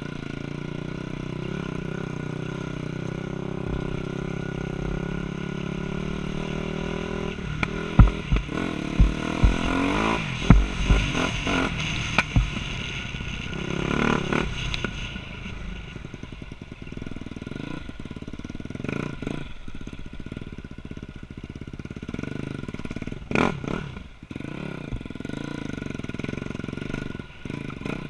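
Dirt bike engine running as the bike is ridden, steady at first, then rising and falling with the throttle. Several loud knocks and clatter come about a third of the way in and again near the end as it goes over rough ground.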